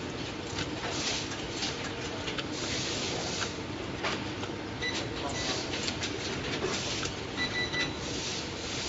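Automatic rotary soldering machine running: a steady mechanical whirr with frequent light clicks. A thin high tone sounds briefly about five seconds in and again for about a second near the end.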